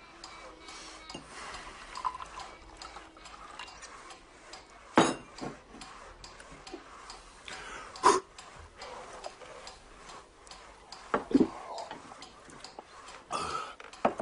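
Clock ticking steadily in a quiet room, with four louder sharp knocks and clinks of glasses and dishes on a wooden table.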